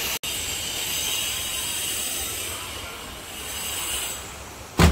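Heavy rain falling, a steady hiss. A loud thump near the end.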